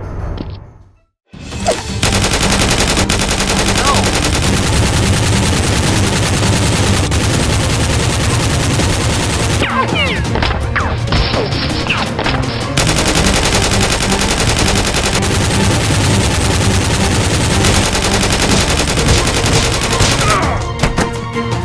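Sustained rapid automatic gunfire, a dense stream of shots starting after a brief silence about two seconds in and easing off near the end.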